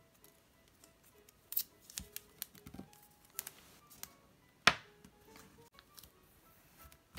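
Handling sounds of glitter washi tape being laid on a notebook page and pressed flat by hand: scattered light ticks and taps, the sharpest a little past halfway. Faint background music plays underneath.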